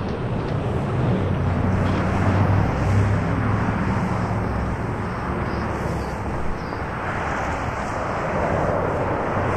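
Street traffic: a vehicle's low motor drone over steady road noise. The drone is strongest in the first few seconds.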